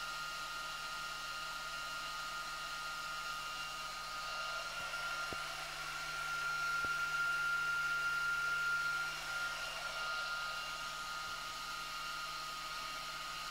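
Cooling fans of a 2 m (144–146 MHz) pallet amplifier running steadily, a rushing air noise with a steady high whine, louder for a few seconds in the middle. Two faint clicks about five and a half and seven seconds in.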